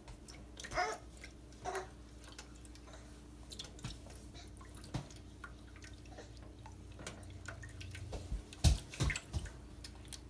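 Chicken broth poured from a can into sour cream in a nonstick pan, dribbling and splashing as it is stirred in. A few sharp knocks near the end, the spatula striking the pan.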